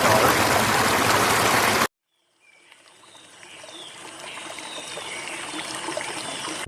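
Loud steady rush of running water that cuts off suddenly about two seconds in. After a brief silence a much quieter watery noise fades in, with faint short high chirps over it.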